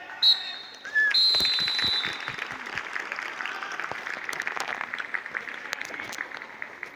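Referee's whistle blown twice, a short blast and then a longer one of about a second, followed by a crowd applauding and clapping that slowly dies down.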